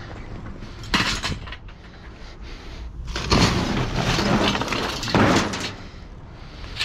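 Discarded junk being rummaged and tossed while sorting scrap: a sharp clatter about a second in, then a longer stretch of crashing and scraping debris.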